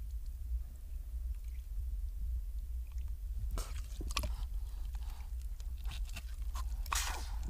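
A young seal surfacing in an ice breathing hole: wet sloshing and short, sharp puffs of breath at its nostrils, beginning about three and a half seconds in, the loudest puff near the end, over a low steady rumble.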